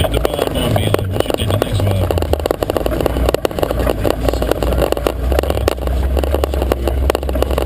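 Jeep Wrangler YJ driving on a rough off-road trail: a low engine rumble under constant rattling and knocking.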